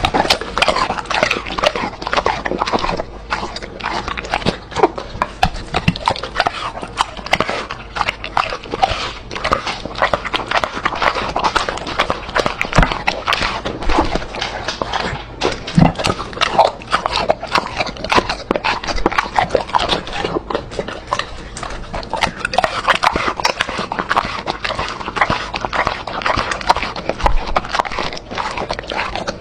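A dog eating close to the microphone: steady, rapid chewing with many sharp mouth clicks a second.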